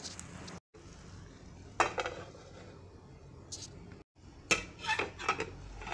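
A stainless steel lid put on a cooking pan with a ringing metal clank about two seconds in, then a quick run of several metal clinks and knocks of lid against pan near the end.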